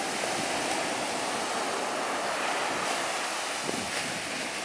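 Ocean surf washing up a sandy beach: a steady rush of breaking waves and foam.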